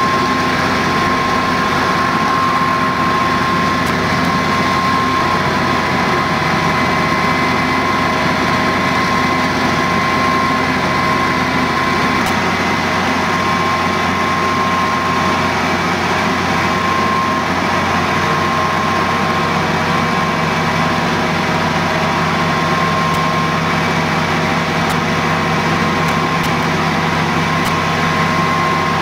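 Fire engines running steadily with their pumps engaged: a constant engine drone with several steady whining tones.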